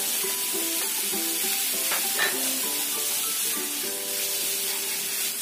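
Minced chicken sizzling steadily as it stir-fries in a nonstick frying pan, with a plastic spatula scraping through it. Light background music of short melodic notes plays over it.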